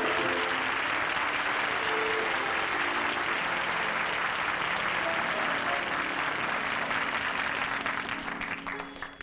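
Studio audience applauding steadily, with orchestra music playing underneath; the applause thins out near the end.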